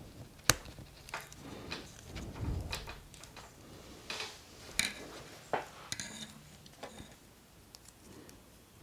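Plastic model kit parts being handled and fitted together: irregular sharp clicks and taps of hard plastic, the loudest about half a second in, with a soft rustle around the middle.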